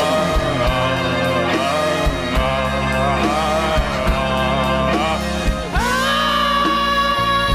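Two male singers singing a rock ballad together into microphones over band accompaniment with drums. About six seconds in they slide up into one long held note.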